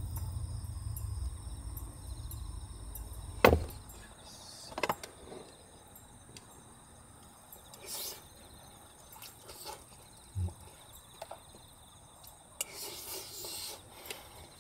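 Crickets chirping in a steady high trill, with a few light clicks and knocks of a spoon against a wooden bowl during eating. A low hum stops abruptly at a sharp click about three and a half seconds in, the loudest sound.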